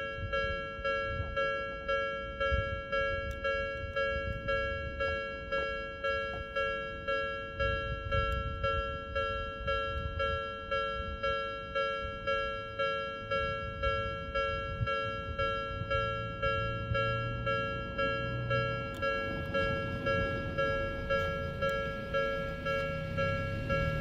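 Japanese railway level-crossing warning bell ringing, an electronic two-tone ding repeating steadily a little under twice a second. This is the signal that a train is approaching. A low hum comes in about two-thirds of the way through.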